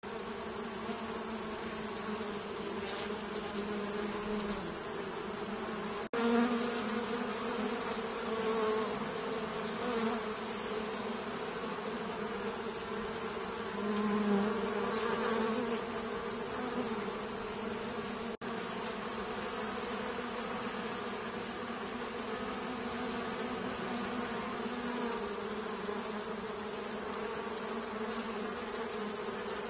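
Bees buzzing: a steady pitched hum that swells louder several times in the first half, broken by two very brief dropouts about 6 and 18 seconds in.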